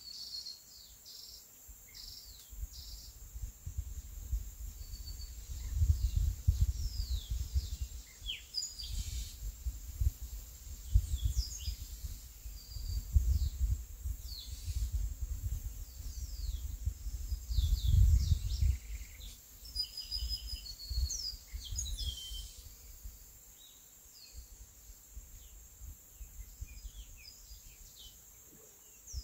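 Small birds chirping and calling in short rising and falling whistles throughout, over a steady high insect hum. Uneven low rumbling gusts of wind on the microphone come and go through the middle and are the loudest sound, dying away for the last several seconds.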